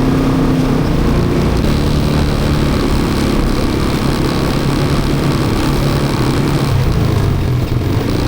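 ATV engine running steadily at a roughly constant pitch, loud throughout.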